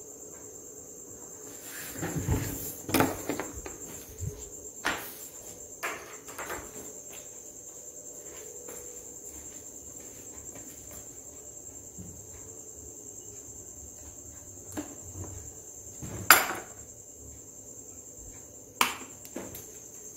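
Steady high-pitched insect trill, as of crickets, under scattered knocks and light clatters: a cluster two to three seconds in, a few more around five and six seconds, and two sharp knocks later, the loudest about 16 seconds in.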